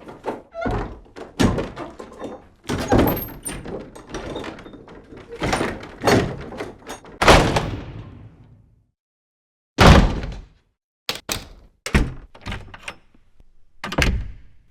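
A door being opened and shut: a run of latch clicks, knocks and clunks, then a loud single slam about ten seconds in, followed by a few quicker knocks near the end.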